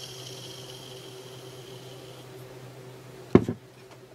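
Ball bearing on a Kress angle grinder's armature spinning freely by hand with a faint high whir that fades out a little over halfway through; spinning this freely means the bearing has lost its grease. A sharp knock about three-quarters of the way in.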